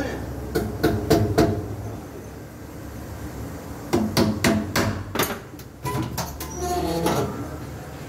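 Sharp metal taps of a hammer on a wheel rim mounted on a wheel-balancing machine, the work of fitting balance weights. Four quick taps come near the start, then a longer run of taps in the middle.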